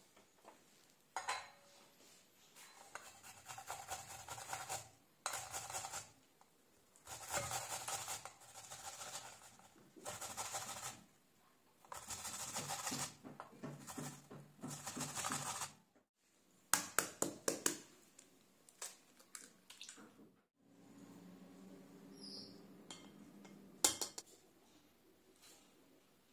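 Apple being grated on a metal hand grater into a glass bowl: a series of scraping strokes, each a second or two long. Later come a few sharp clinks of utensils against the bowl.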